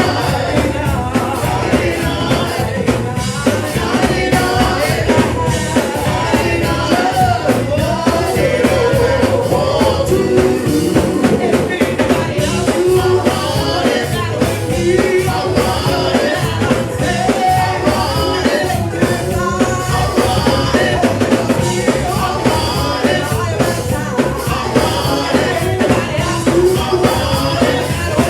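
Live gospel worship music: a band with drum kit playing an up-tempo song while voices sing.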